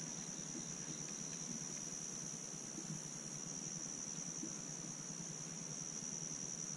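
Steady, high-pitched chorus of insects, with a faint low hum beneath.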